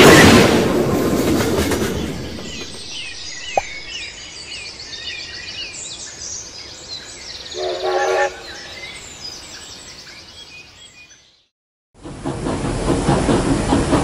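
Train sound effects: the rumble and clatter of a passing train fade away over the first two seconds, leaving faint high chirps and one sharp click. A short pitched call sounds about eight seconds in, then a moment of silence before a train's running sound comes in loudly near the end.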